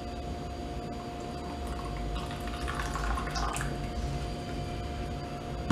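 White vinegar poured from a plastic bottle into a plastic measuring cup: a faint trickling that grows a little about two seconds in and tails off after about three and a half seconds.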